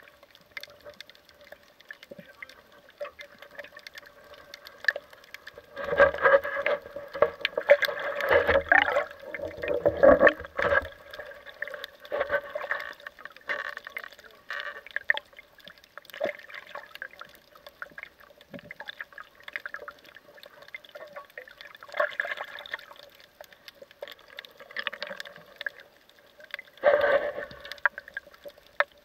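Water sloshing and bubbling around an underwater action camera, over a faint steady hum, with louder surges from about six to eleven seconds in and again near the end.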